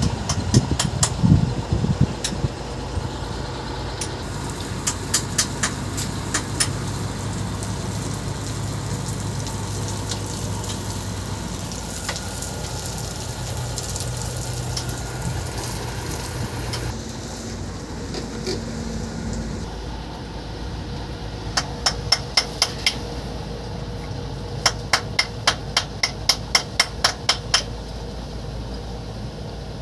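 Runs of hammer blows on steel, several quick strikes at a time at about three a second, the longest run near the end. Underneath, a truck's engine runs steadily.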